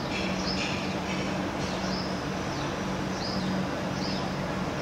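Background ambience: a steady hiss and low hum, with several short, high bird chirps that dip at the end, repeating at irregular intervals.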